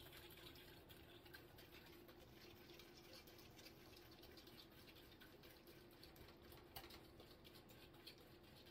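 Near silence: the faint scraping and ticking of a utensil stirring a thick gelatin mixture in a saucepan, with one slightly louder click near the end and a faint steady hum underneath.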